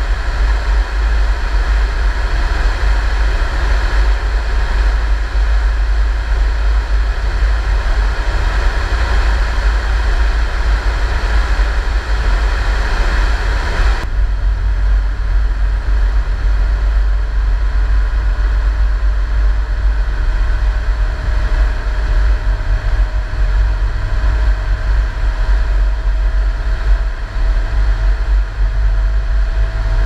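A vehicle driving on a road, recorded from a camera mounted on it: a loud, steady rumble heavy in the low end. About halfway through the sound changes, and a faint whine rises slowly in pitch.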